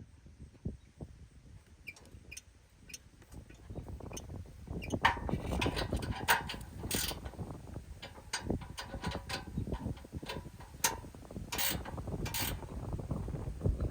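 Hand ratchet wrench clicking as bolts on a Jeep Wrangler JK rear bumper are worked, with irregular metal clicks and knocks. It is faint for the first few seconds and gets louder and busier from about five seconds in.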